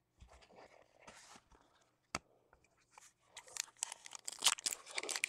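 A foil trading-card pack wrapper being torn open and crinkled, with light rustling and a single click before the crackling of the wrapper picks up and grows louder in the last two seconds.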